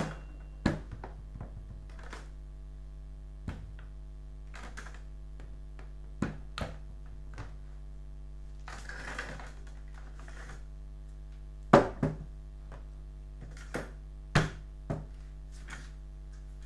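Hard plastic bracket parts and prismatic LiFePO4 cells being handled during disassembly of a battery pack. Scattered clicks and knocks, the loudest about twelve and fourteen seconds in, with a brief scraping rustle around nine seconds in, over a steady low hum.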